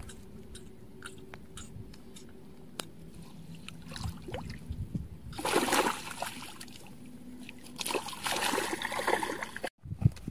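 Water splashing in the shallows at a pond's edge, in two bursts about five and eight seconds in, as a freshly caught rohu is handled into a keep net; faint small clicks of line and hook handling come before.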